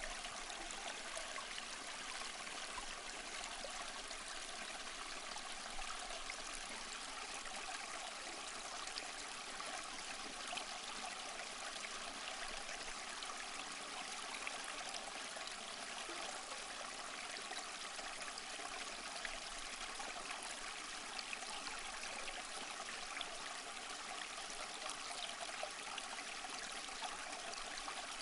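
A small stream flowing, a steady, even rush and splash of water with little deep rumble.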